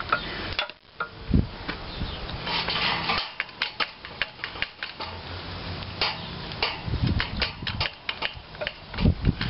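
Repeated sharp metallic clicks and clinks as a hand-pumped hydraulic porta-power ram is pumped up against a rust-seized piston, the steel fixture and ram taking up pressure.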